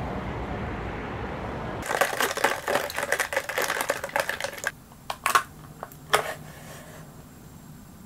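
A steady hiss for about two seconds, then a fast run of clattering clicks for nearly three seconds and a few separate knocks after it, as a plastic drink cup of boba tea is picked up and handled.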